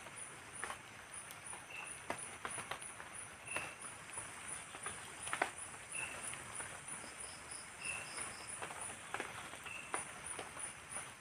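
Light drizzle on a tarp and leaves, with a soft hiss and scattered irregular drip ticks. Night insects call over it: a high pulsing chirp about three times a second throughout, a short chirp about every two seconds, and a brief run of rapid higher pulses past the middle.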